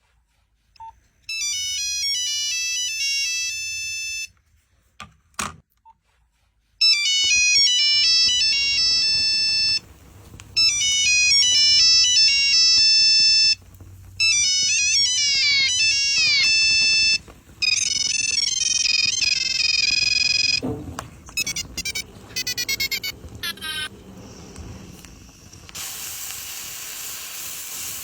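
Nokia mobile phone ringtone playing a high, stepping melody in repeated stretches of about three seconds with short gaps; about twenty seconds in it stutters and breaks up, and near the end a steady hiss takes over.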